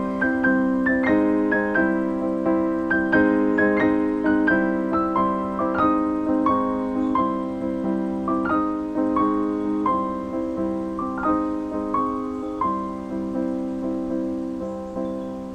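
Background piano music: a gentle melody of single struck notes over sustained lower chords, slowly getting quieter toward the end.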